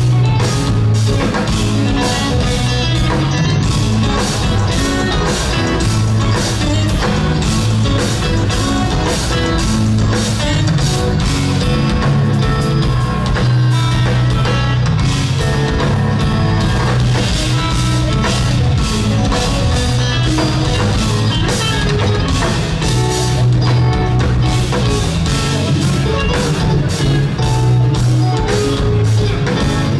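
Live instrumental progressive metal: two eight-string electric guitars and a drum kit playing loud and fast, with a dense run of drum hits under low, heavy guitar parts. Heard from the crowd through a compact camera's microphone.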